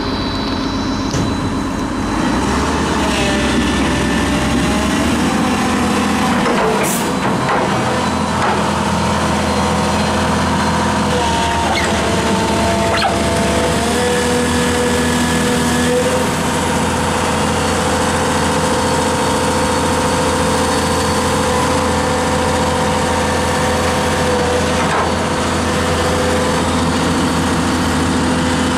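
Daewoo Solar S300LC-V crawler excavator running: a steady diesel engine drone with hydraulic whining tones that shift in pitch now and then as the machine works. Its steel tracks are moving through wet mud.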